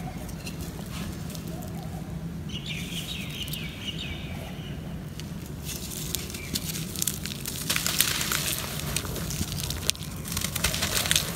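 Dry, molded cakes of red dirt crumbling and crackling in the hands. The crisp crunching thickens in the second half as a cake is snapped apart. Birds chirp a few seconds in, over a steady low hum.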